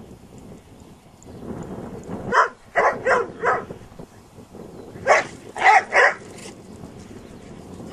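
Belgian Shepherd dog (Groenendael) barking in two bursts of about four sharp barks each, the second burst coming about two seconds after the first.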